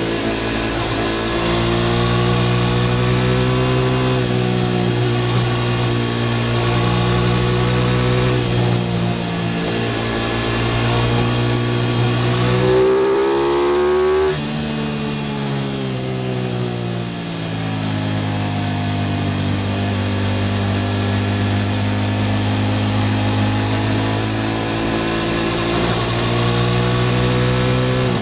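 Aprilia RS660 parallel-twin engine under way at a steady pitch, then revving up to a peak about halfway through. The throttle shuts suddenly there and the revs fall away over a few seconds, then settle into a steady cruise.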